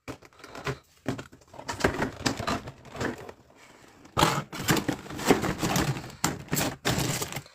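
Packaging being handled: cardboard and plastic wrapping rustling and crinkling in irregular bursts, with sharp crackles.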